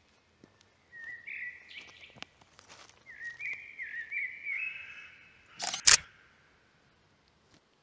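Birds chirping in short, stepped calls. About two-thirds of the way through, an SLR camera's shutter fires: a loud, quick double click.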